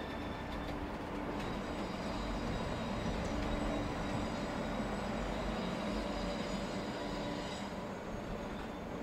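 Passenger train carriages rolling past on curving track: a steady rumble of wheels on rail with faint, high wheel squeal.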